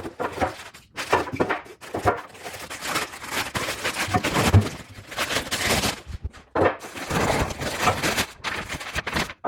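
A cardboard box and its packing being opened and handled. There is irregular rustling and scraping with occasional knocks and thunks.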